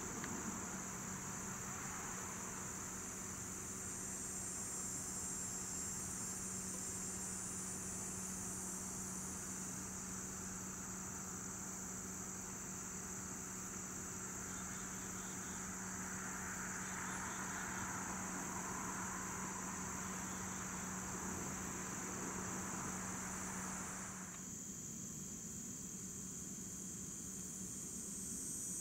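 Insects chirring steadily in a high band over the low, steady engine hum of a distant diesel locomotive; the hum falls away suddenly near the end.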